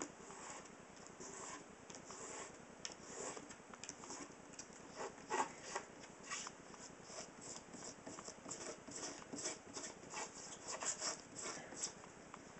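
Wet 600-grit sandpaper rubbed lightly by a latex-gloved hand over a painted helmet, lifting off latex masking fluid from under the paint. Faint, irregular scratchy strokes, a few of them louder.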